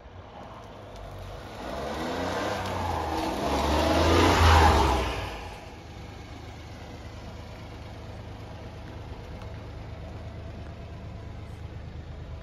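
A motor vehicle's engine accelerating nearby, rising in pitch and loudness for a few seconds and dying away about six seconds in, followed by a low steady hum.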